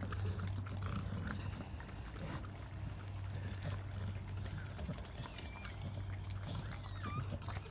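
A dog licking and mouthing a newborn puppy's birth sac, making quick, irregular wet licking and smacking sounds over a steady low hum.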